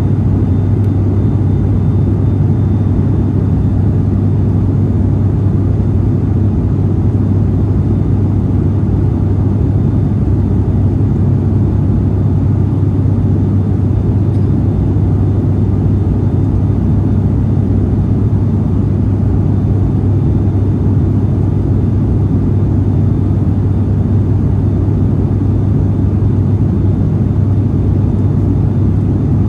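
Steady cabin drone of a turboprop airliner in flight: a strong, even propeller hum over an engine rumble.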